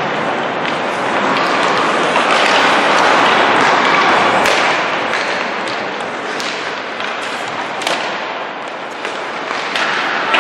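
Ice hockey warm-up: pucks knocking off sticks and the boards a handful of times, over steady rink noise from skates and players.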